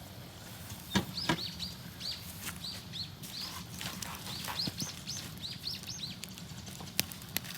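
A small bird chirping over and over in short, arched high chirps, several a second. A few sharp clicks come about a second in and again near the end.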